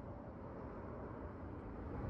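Faint, steady low rumble of outdoor background noise, with no distinct events.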